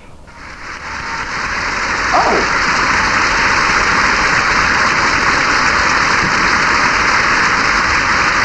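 Studio audience applauding, building from quiet to a steady even clapping over the first two seconds.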